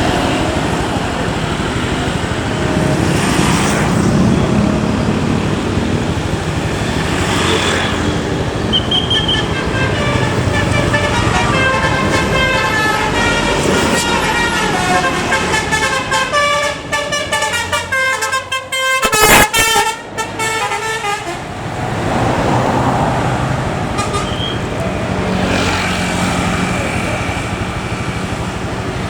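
Basuri 'telolet' multi-tone horn on a Scania K410 bus playing a quick tune of short notes stepping up and down in pitch, over the steady noise of the bus on the road. The tune starts about a third of the way in, is cut through near its end by a brief loud rush of noise, and stops about two thirds of the way through.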